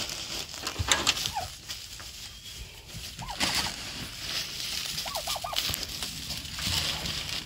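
White turkeys calling with short yelps several times, one a quick run of about four notes around five seconds in. Between the calls, pine shavings pour and scatter from a bag with brief rustling hisses.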